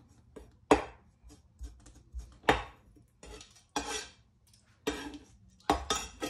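Chef's knife knocking and cutting against a plastic cutting board in irregular single strokes while trimming fat off duck gizzards, with a quick run of knocks near the end.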